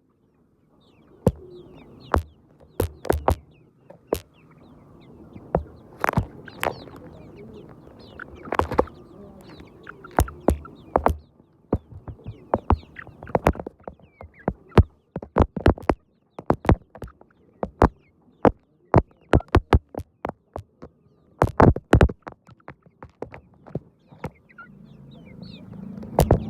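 Chickens clucking, with many sharp, irregular clicks and taps throughout.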